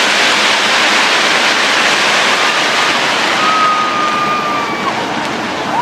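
Dense, steady roar of a fireworks show, crowd noise and crackling fireworks blended together, with a few long high whistles in the second half.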